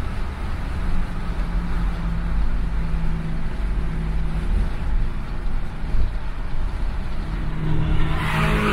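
Steady road and engine rumble heard inside a car cruising at highway speed, with a brief rush of hissing noise near the end.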